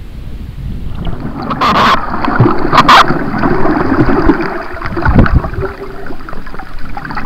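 Muffled rushing and sloshing of seawater heard through a camera held underwater, with two short, sharp splashy bursts about two and three seconds in.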